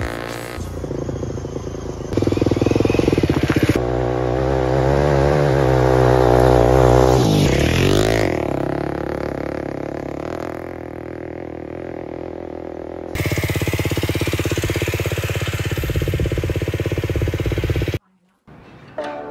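Motorcycle engines in a run of short clips cut together: bikes running and revving as they ride past, the pitch swinging up and down as one passes about eight seconds in. The sound changes abruptly at each cut and drops out briefly near the end.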